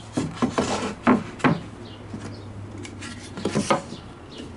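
Wooden marking template knocking and clattering against the pine boards as it is picked up and set in place: a quick run of wooden knocks in the first second and a half, and another short run about three and a half seconds in. Faint bird chirps in the background.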